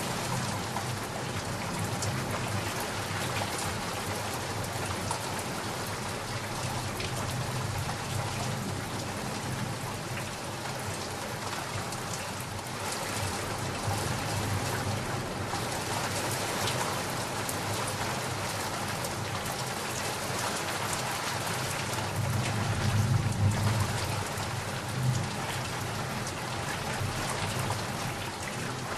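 Steady heavy rain falling and pattering on surfaces. A low rumble of distant thunder swells briefly about three-quarters of the way through.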